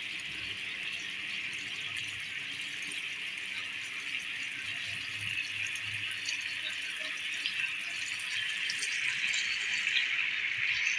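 Gulab jamuns sizzling and bubbling in hot liquid in a non-stick pan: a steady hiss with fine crackles, a little louder near the end.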